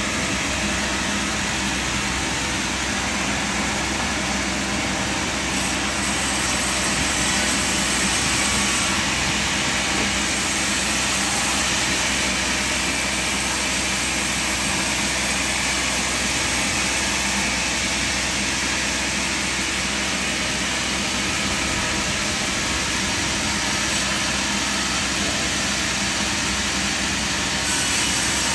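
Sawmill machinery running with a steady engine-like drone. A high-pitched hiss swells for several seconds at a time, from about six seconds in, again from about ten seconds, and near the end.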